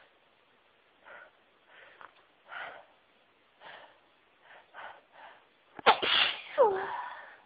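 A woman's sneeze: a run of about seven short breaths as the sneeze builds, then one loud sneeze about six seconds in, its voiced tail falling in pitch.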